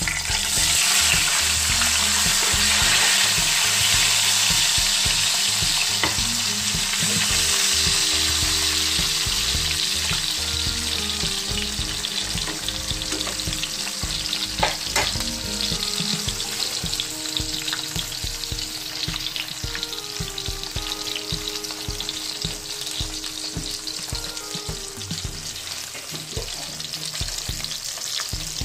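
Hot dogs sizzling in hot oil in a frying pan. The sizzle is loudest just after they go in and slowly dies down. There is one sharp knock about halfway through.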